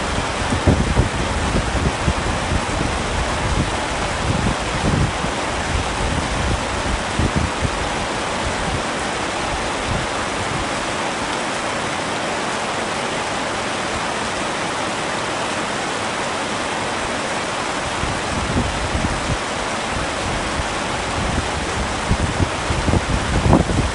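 Heavy rain falling steadily, a dense even hiss, with low rumbling pulses underneath in the first half and again near the end.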